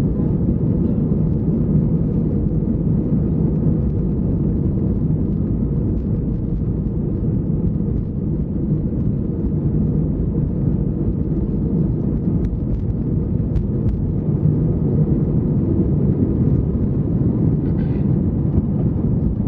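Airbus A319 airliner's jet engines at takeoff power with runway rumble, heard inside the cabin during the takeoff roll and lift-off: a steady, loud, low noise, with a few faint clicks in the second half.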